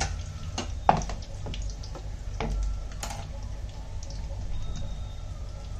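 Pakoras deep-frying in hot oil: a steady sizzle dotted with small crackles, over a low steady hum. A few sharp knocks of kitchen utensils stand out, the loudest about a second in.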